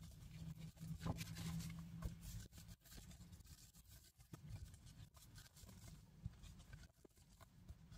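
Faint rustling and soft ticks of paper and fabric-trimmed pages of a handmade junk journal being turned and handled, over a low steady hum.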